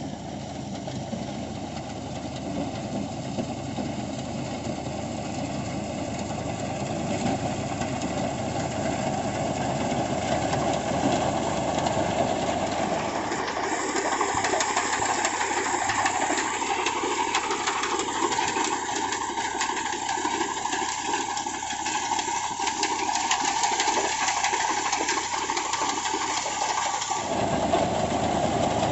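Al Ghazi tractor's diesel engine running steadily under load while driving a PTO-powered wheat reaper through standing wheat. A steady rushing noise from the reaper and the falling crop runs alongside it, with a change in the sound about halfway through and again near the end.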